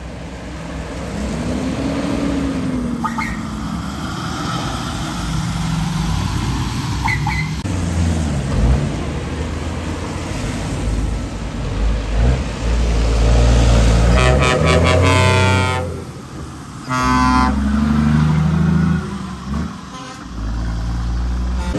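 Heavy trucks, a Scania tractor unit hauling a box trailer among them, pulling away with their diesel engines revving up and down. Two loud horn blasts sound in the second half, the first about a second and a half long.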